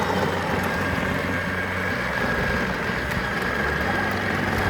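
Power Wheels ride-on toy car driving on an 18-volt DeWalt battery through a converter adapter: its electric drive motors and gearboxes make a steady whine over the rumble of the wheels rolling on the ground.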